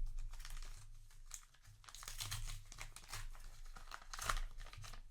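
Foil booster-pack wrapper crinkling and tearing as it is handled by hand, in irregular rustling bursts with a louder crinkle about four seconds in.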